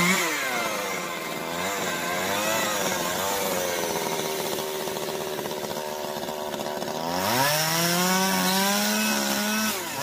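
Small chainsaw cutting wood with its engine revving up and down, carving deadwood into a plum tree trunk. About seven seconds in it revs up and holds at high speed, then drops back right at the end.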